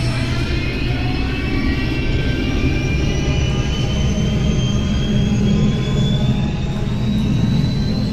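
A jet-like engine sound effect: a steady low rumble under a high, many-toned whine that rises slowly and evenly in pitch, like an engine spooling up.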